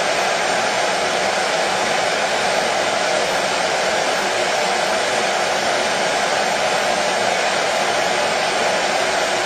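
Hair dryer running steadily, an even, unchanging rush of air and motor noise.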